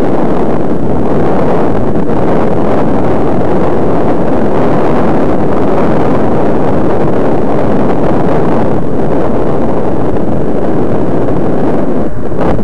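Loud, steady rush of wind buffeting the microphone of a glasses-mounted camera on a moving bicycle, an unbroken noise with no pitch to it.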